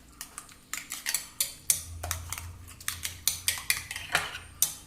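A utensil beating an omelette mixture of egg and chopped vegetables in a bowl, clinking against the bowl in a string of irregular sharp clicks, roughly two a second.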